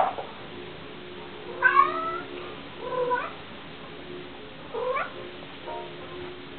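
Maine Coon cat giving three short meows, a second or so apart, after a sharp click right at the start.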